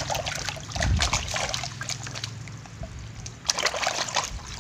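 Muddy water in a plastic basin splashing and sloshing as a hand scrubs a toy truck under the surface, with louder splashes about a second in and again past the three-second mark.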